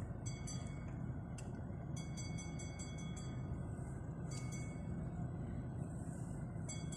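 Steady low rumble of a car's engine and road noise heard inside the cabin, with several short bursts of rapid, high metallic chiming clinks.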